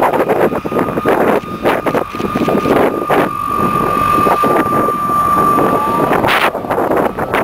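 MiG-15UTI jet trainer's turbojet engine running as the jet rolls past on the runway, a steady high-pitched whine, with heavy wind buffeting on the microphone.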